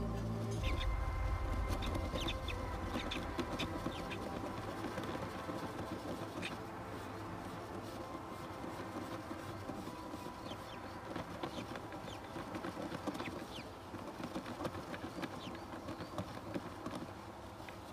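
Newly hatched kestrel chicks cheeping in short, high, scattered calls, with rustling of feathers and wood chips as the female kestrel shuffles down to brood them.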